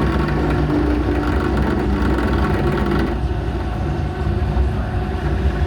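JET drill press running with a steady motor hum, its speed being changed with the variator on top; about three seconds in, the sound turns duller.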